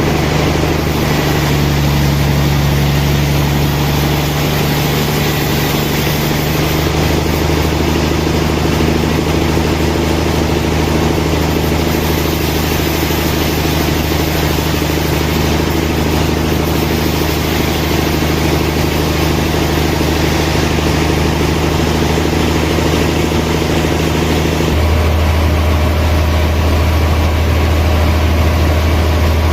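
Sawmill machinery running steadily with a continuous engine-like hum. About 25 seconds in the hum changes suddenly to a deeper, louder drone, as a machine changes speed or load.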